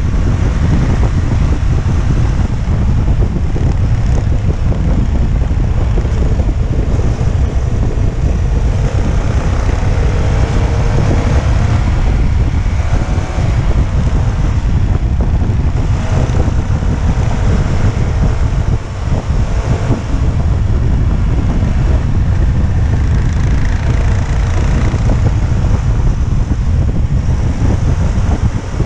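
Heavy wind buffeting on the microphone of a motorcycle under way, with the engine's note faintly rising and falling beneath it.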